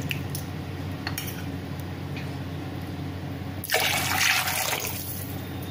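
Water poured from a glass jug into a glass bowl of curd and gram-flour batter, starting suddenly about two-thirds of the way in and tapering off, over a faint steady hum.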